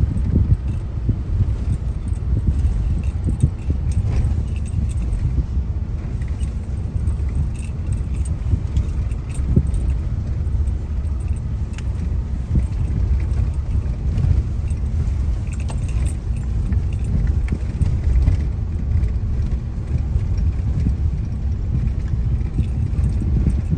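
Car moving slowly, heard from inside the cabin: a steady low rumble of engine and road, with light rattling and jingling throughout.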